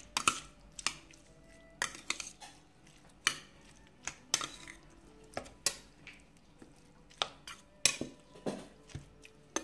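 Metal spoon stirring chunks of raw chicken fillet in a stainless steel bowl, knocking and clinking against the bowl in sharp, irregular clicks about once a second.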